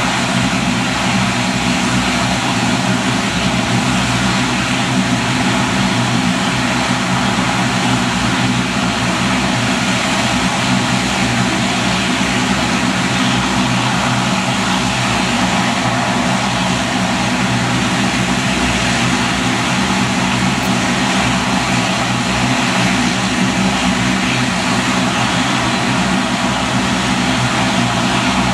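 Turboprop engines of a Dash 8 airliner running steadily at close range, a loud even propeller drone with a low steady hum that does not rise or fall.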